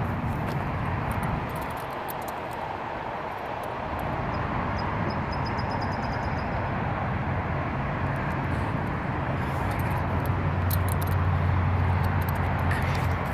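Steady hum of road traffic. A low engine drone swells toward the end as a vehicle passes.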